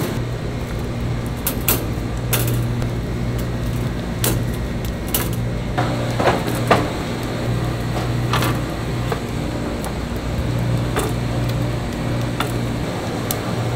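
Whole fish being picked from a wooden crate and laid on a metal wire grill rack over charcoal, giving scattered sharp clicks and knocks, about eight in all. A steady low machine hum runs underneath.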